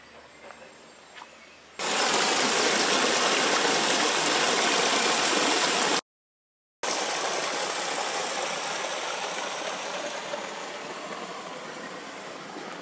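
Small waterfall pouring over a rock ledge into a pool, a steady rush of water that starts abruptly about two seconds in. It cuts out briefly near the middle, then returns and slowly fades.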